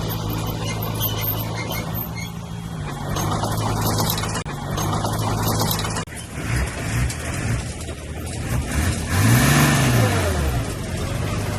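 Heavy diesel engine running steadily, then after an abrupt change about halfway through, rising in pitch and falling back once near the end as it is revved.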